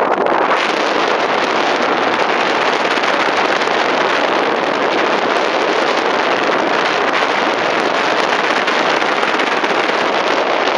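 Wind rushing over the microphone of a paraglider in flight: a loud, steady rush of airflow noise.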